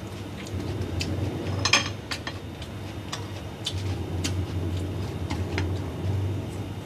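Eating at the table: a fork and chopsticks clicking irregularly against a glass plate of fried noodles, with a short crackly crunch of a puffed kerupuk cracker a little under two seconds in, over a low hum.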